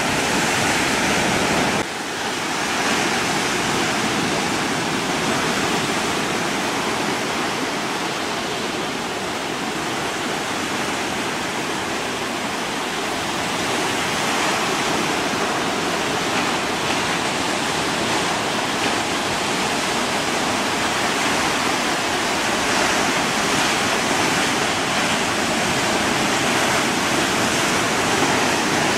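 Steady rushing noise of wind and waves, dipping briefly about two seconds in, with a faint steady hum beneath it.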